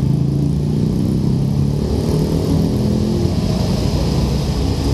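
Road traffic passing close by: car and motorbike engines running over steady tyre and road noise, with engine pitch sliding as vehicles go by around the middle.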